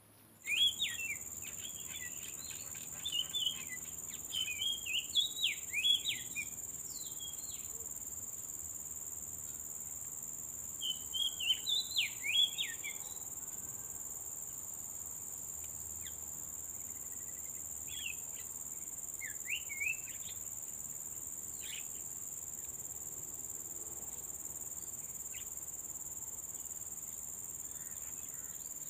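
Steady high-pitched drone of insects such as crickets, with bursts of quick chirping calls near the start, about eleven seconds in and again around nineteen seconds in.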